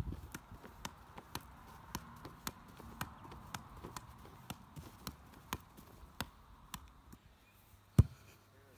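A football being juggled off the knees and feet, short taps about twice a second. About eight seconds in comes one much louder thump as the ball drops to the ground.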